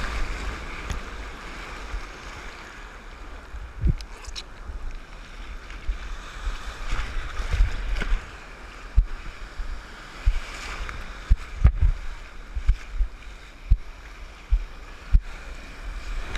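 Ocean surf washing and sloshing around a boogie board, heard through a board-mounted camera with water splashing against it, plus wind on the microphone. Dull thumps come now and then, most of them in the second half.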